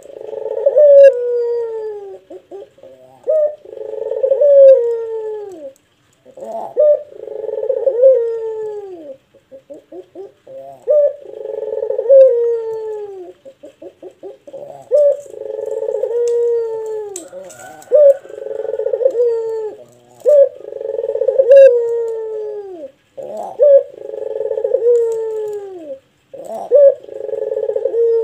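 Puter (Barbary dove) cooing in long, deep, bass coos. The phrases repeat about every three to four seconds, and each ends in a falling glide. A few short rapid notes fall between some of the phrases.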